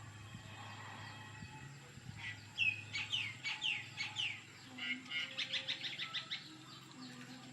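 A run of short, high chirping calls, each sweeping down in pitch, starting about two seconds in and quickening into a fast trill of chirps before stopping a little after six seconds.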